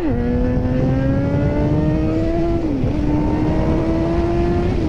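Motorcycle engine pulling under acceleration, its pitch climbing steadily and then dropping sharply as it shifts up about two and a half seconds in and again near the end, over a low rushing rumble.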